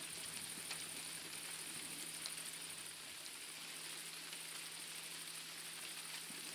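Faint, steady night-time outdoor ambience: an even, high-pitched insect chirring over a low steady hum, with a few faint ticks.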